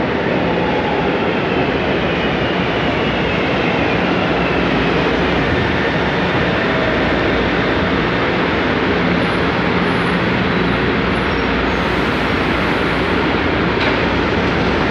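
Metro train pulling into an underground station and braking to a stop: a loud, steady rumble of wheels on rail, with a faint falling whine as it slows.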